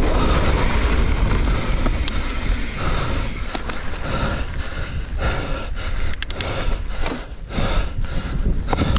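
Wind rushing over an action-camera microphone and a mountain bike's tyres rolling over a dirt trail, with a steady rumble. A few sharp clicks and rattles come about six seconds in.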